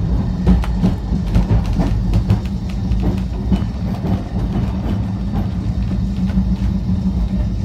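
Cable-hauled Great Orme tramcar running along its street track: a steady low rumble of wheels on rail with a constant hum and scattered clicks.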